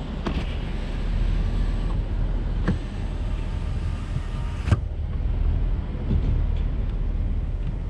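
Vehicle rolling slowly with a steady low rumble, broken by three sharp clicks, the loudest a little past the middle.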